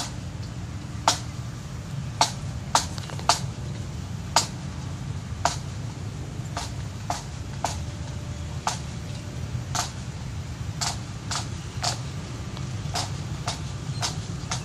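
Sharp taps keeping marching time, one about every half second with some beats left out, over a steady low rumble.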